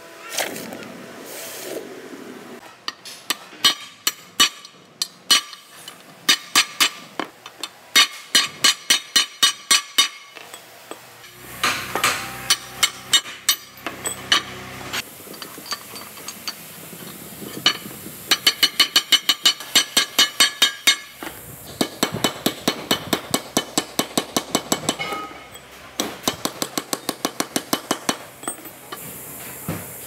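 Runs of quick hammer blows on a steel drive shaft yoke, a few strikes a second, knocking at the universal joint's bearing cups, with short pauses between runs.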